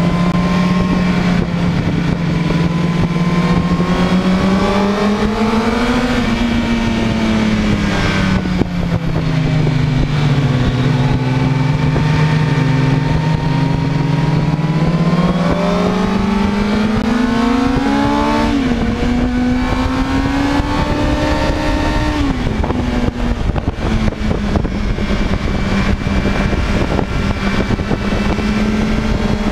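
Sport motorcycle engine heard on board at track speed, its pitch rising and falling with the throttle through the corners. Twice in the second half the pitch drops suddenly as a gear is changed, over a steady rush of wind noise.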